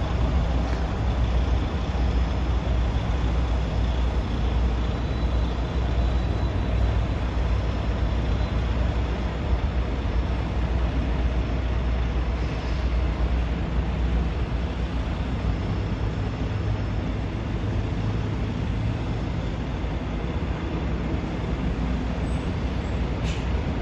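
Steady low rumble of heavy vehicle engines, like buses idling or moving through a station.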